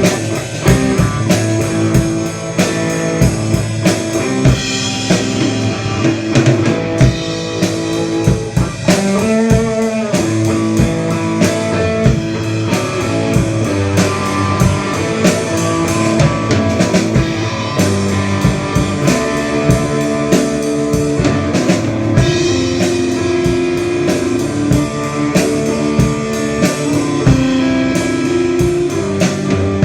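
A band playing blues-rock on guitar and drum kit, with steady drum hits under sustained guitar notes. About ten seconds in, one note is held and wavers.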